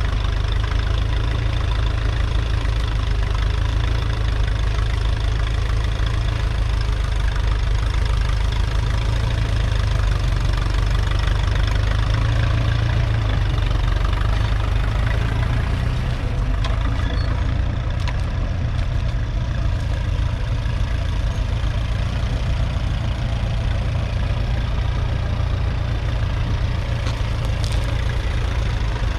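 Ferguson TED-20's 2.1-litre four-cylinder petrol/TVO engine running steadily as the tractor pulls a mounted plough through the soil, easing off slightly about halfway through.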